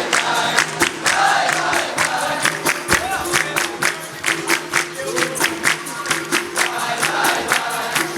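Capoeira roda music: a group singing together over steady instruments and sharp percussion strikes at about four a second.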